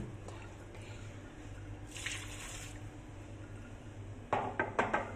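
Water dripping and sloshing in a mug just filled at a kitchen tap. There is a short splash about two seconds in, then a quick cluster of several clunks and splashes near the end.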